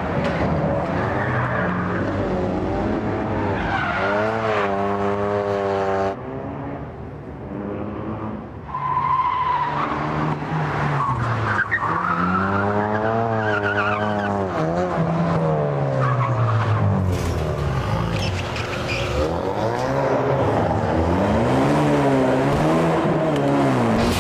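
Ford Focus RS driven hard and drifted: the engine revs rise and fall again and again while the tyres squeal. The sound jumps abruptly several times between passes.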